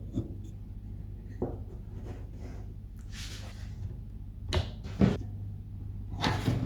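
A few sharp knocks and a brief swish of objects being handled and set down, with the loudest knock about five seconds in, over a steady low hum.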